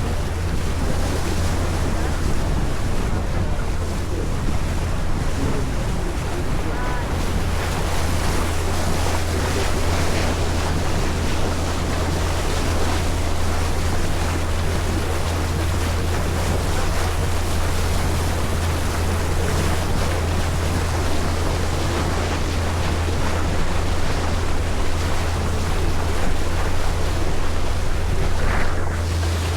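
Ferry underway: a steady low engine drone with the rush of water along the hull, and wind buffeting the microphone.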